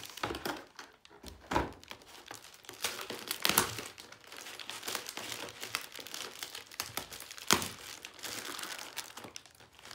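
Plastic packaging crinkling and rustling as the DVR recorder is unwrapped, with a few sharp crackles.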